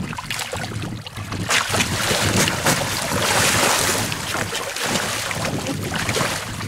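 Lemon sharks splashing and thrashing at the water surface as they strike at bait hung on a line, with wind buffeting the microphone. The noise swells loudest around the middle.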